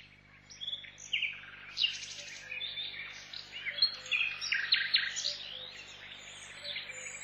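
Several birds chirping and calling together, a dense run of short, quick whistled notes that glide up and down, over a faint steady low hum.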